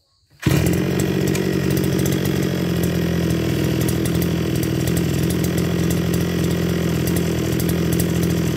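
Kawasaki TA33 brush cutter's 33cc two-stroke engine running steadily at an even speed, starting abruptly about half a second in.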